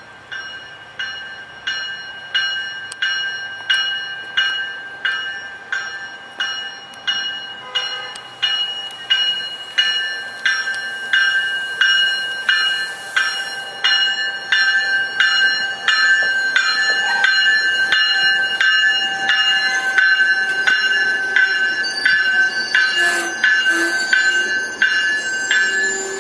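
Railroad grade-crossing warning bell ringing in steady, evenly spaced strikes, about one and a half a second, as an MBTA commuter train pulls in alongside the platform and its running noise grows. A thin wheel squeal comes in near the end.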